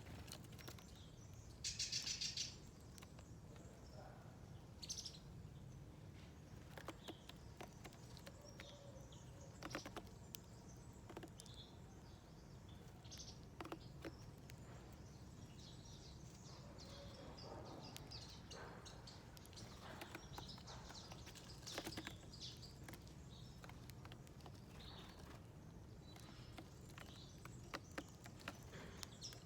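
Small wild birds calling faintly at a garden feeder, with one louder rapid trill about two seconds in and a few short chirps later, among scattered faint clicks.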